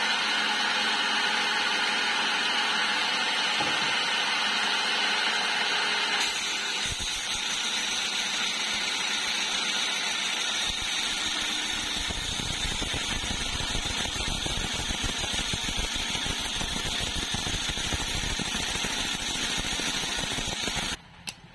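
Homemade disc sander running, with a small piece of wood held and sanded against the spinning disc. The sound cuts off suddenly near the end.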